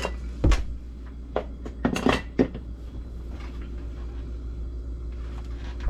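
Metal chainsaw parts clinking and knocking against a wooden workbench as they are handled and set down, with a few sharp knocks in the first two and a half seconds and lighter ones later, over a steady low hum.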